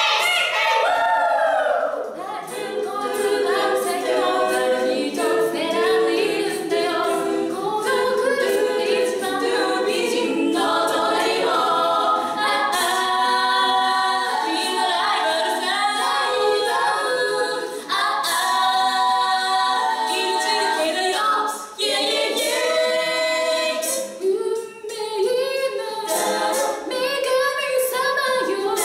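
Six-woman a cappella group singing a Japanese pop song in close harmony, a lead voice over held backing chords with no instruments, broken by a couple of brief pauses about three quarters of the way through.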